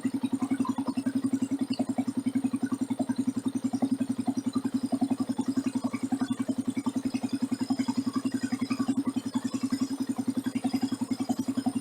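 Motorcycle engine running at a steady pitch with a fast, even throb, heard from a phone mounted on the bike.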